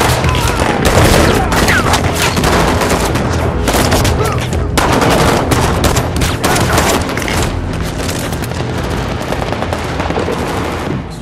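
Heavy automatic rifle fire from several guns at once: dense, rapid, continuous shots with no let-up, dropping away abruptly near the end.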